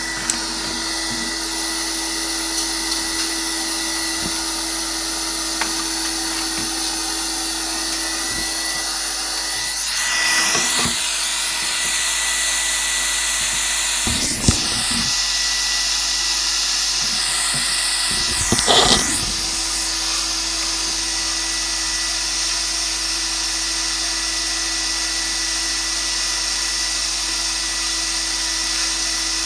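Vacuum cleaner running steadily while its hose nozzle works inside the printer's build chamber, picking up loose plastic scraps. The suction note shifts briefly three times, about a third and two thirds of the way in, with a few light knocks of the nozzle.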